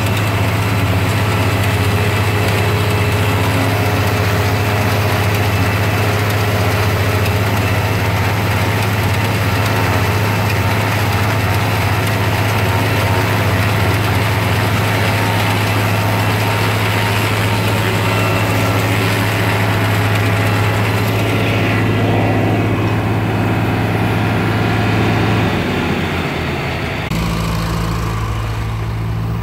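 Tractor engine running steadily under load, driving a PTO-powered Papec one-row forage chopper cutting standing corn and blowing chopped silage into a wagon: a constant low engine drone with machine clatter and whir on top. Near the end the sound changes abruptly and becomes a little quieter.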